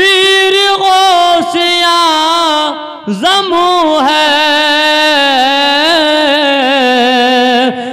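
A man singing an Urdu devotional verse (naat-style) unaccompanied into a microphone, drawing out long ornamented notes. The voice drops off for a breath about three seconds in, then carries on with another long wavering note.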